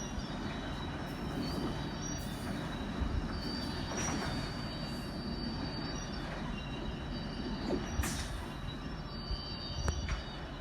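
CSX rail train unloading new steel rails: a steady rumble with high, thin screeching tones that come and go as the rails slide off the train. A few sharp metal knocks stand out, about four and eight seconds in.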